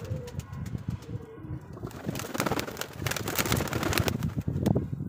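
Domestic pigeons cooing at the loft, over a low rumble of wind buffeting the microphone. About two seconds in, a louder rush of noise lasts for about two seconds.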